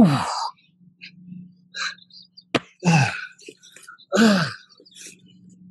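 A man's hard breathing from exertion during burpees with a sandbag: three forceful exhaled grunts, each falling in pitch, the last as he presses the sandbag overhead. A sharp click comes a little before the second grunt.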